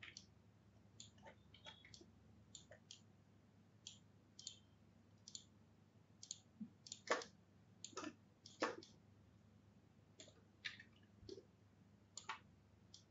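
Faint, irregular clicking of a computer mouse and keyboard, with a few louder clicks in the middle, over a low steady hum.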